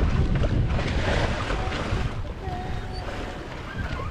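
Wind buffeting the microphone aboard a small sailboat under way, with the sea washing past; it eases slightly near the end.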